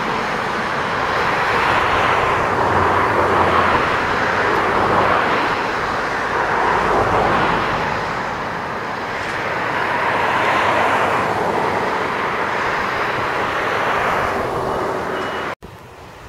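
Class 66 diesel locomotive and its train of loaded wagons passing close by: a loud, steady rumble of engine and wheels on rail that swells and eases every few seconds, cut off abruptly near the end.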